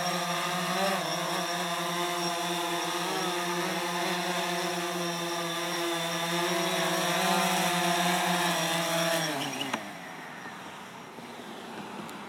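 Drone's propellers and motors buzzing with a steady pitch while it flies low, then the pitch falls and the motors spin down and stop as it lands, about nine to ten seconds in, with a small click as they stop.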